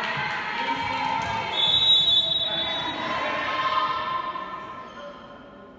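Girls' voices shouting and calling in a sports hall, echoing, with a shrill whistle blast about a second long starting about one and a half seconds in: the referee's signal to serve. The voices die away near the end.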